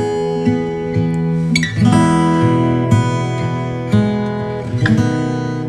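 Background music: acoustic guitar strumming chords, with a new strum about once a second.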